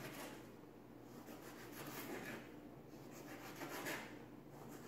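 Kitchen knife slicing through a ripe tomato onto a plastic cutting board: a few faint, soft cutting strokes.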